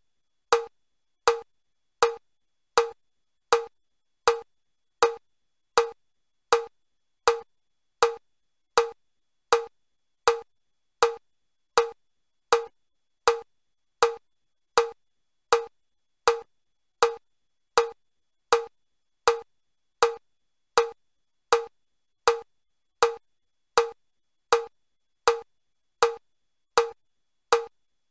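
Metronome clicking at a steady beat, a little more than once a second (about 80 beats a minute). Each click is short and sharp with a clear mid pitch. This is the level 2 stepping pace of the Chester step test, 20 steps a minute at four beats per step.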